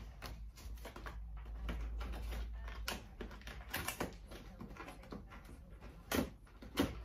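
Cardboard box and packaging being handled and opened: scattered light clicks and rustles, with a few sharper knocks in the second half.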